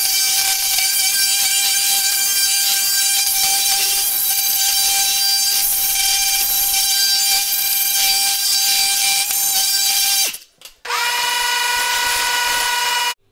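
Multi-tool with a small diamond round bit running with a steady high whine, grinding not-yet-hardened thinset out from under the edge of laid floor tile. It stops about ten seconds in, then runs again for about two seconds at a lower pitch.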